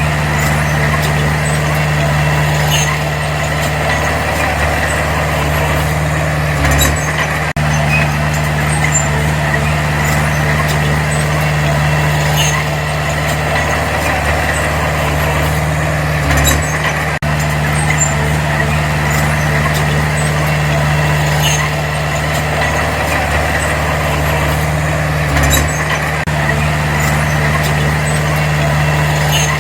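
Diesel engine of heavy earthmoving machinery running steadily under work, its note dipping briefly about every nine seconds, with faint scattered clicks.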